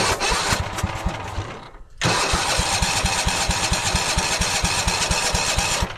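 Lawn tractor's starter cranking the cold engine in two attempts, a short one that stops about two seconds in and a longer one right after, with a rapid even chugging of compression strokes; the engine does not catch, hard starting from the cold.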